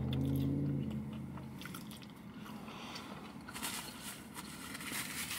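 Person chewing and crunching on fast-food fries close to the microphone, with the mouth noises clearest in the last two seconds. A low hum fades out in the first second and a half.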